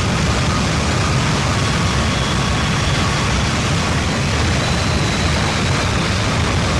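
Harsh noise wall: a dense, unchanging mass of loud static over a heavy low rumble, with faint thin tones drifting high up.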